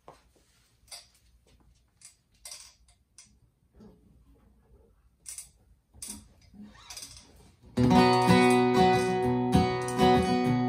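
Faint scattered clicks and rustles of someone sitting down and settling an acoustic guitar, then about eight seconds in the acoustic guitar starts strumming loud ringing chords.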